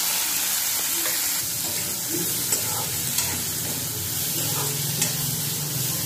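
Finely chopped onions and green chilli sizzling steadily in hot mustard oil in a kadhai as they are stirred, with a few light clicks of a utensil against the pan.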